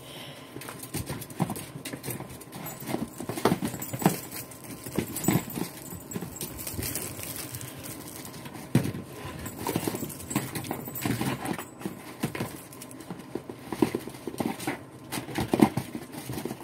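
Ferrets playing in a plastic wading pool full of snow: irregular knocks, thumps and scrabbling as they dig and shove plastic bowls around.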